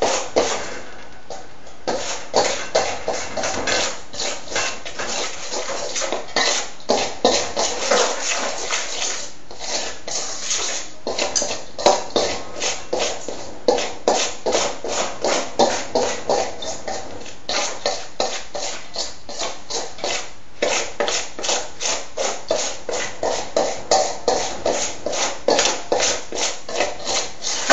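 Two butter knives cutting mashed banana into a flour mixture in a stainless steel mixing bowl, scraping and clicking against the metal in a quick, steady rhythm of about three strokes a second.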